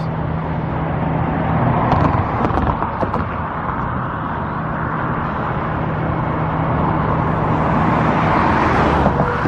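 Steady road traffic noise from passing cars, swelling a little near the end as a vehicle goes by.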